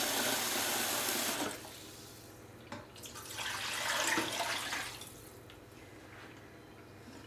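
Kitchen tap running into a plastic bowl, shut off about a second and a half in. Then water is poured from the bowl into a steel pot for about two seconds.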